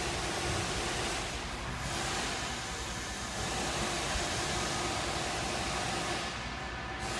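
Steady background noise of a workshop: an even hiss with a faint low hum under it, and no distinct knocks or clinks.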